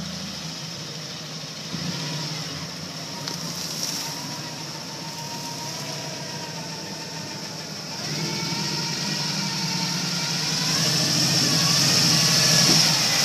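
Lifted Jeep Wrangler YJ engine revving as it drives through a deep muddy water hole. The revs rise and fall in surges over the second half, climbing and getting louder near the end.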